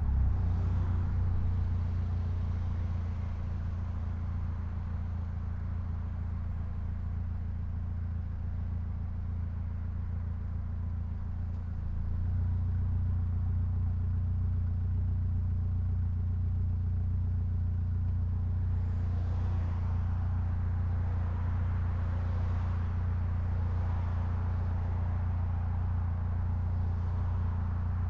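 Mitsubishi Lancer Evolution X's turbocharged 2.0-litre four-cylinder running steadily at a constant low pitch, getting a little louder about twelve seconds in.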